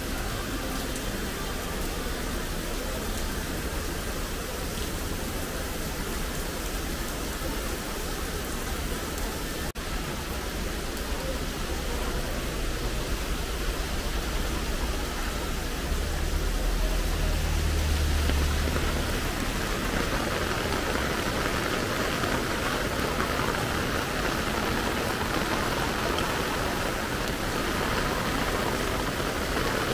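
Heavy rain falling on a city street, a steady hiss that grows louder over the last ten seconds. A vehicle passes with a low rumble about sixteen to nineteen seconds in.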